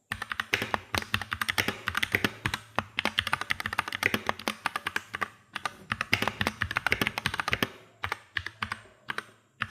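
Fast, continuous typing on an EvoFox Katana S Mini compact mechanical keyboard: a dense run of key clicks, with brief pauses about halfway through and near the end.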